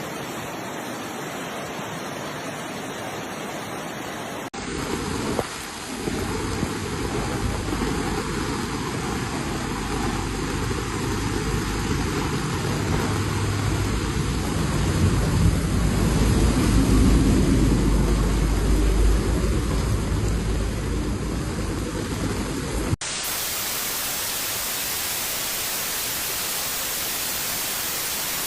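Steady storm noise of heavy rain and wind on the microphone, in three separately recorded stretches that cut abruptly about four seconds in and again near the end. The long middle stretch carries a heavy low rumble that grows louder toward its end.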